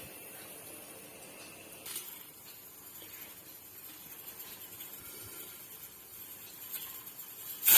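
Pressure cooker heating on a high gas flame, a faint steady hiss with a light knock about two seconds in. Right at the end its whistle bursts out in a sudden loud rush of steam, the first whistle of the cook.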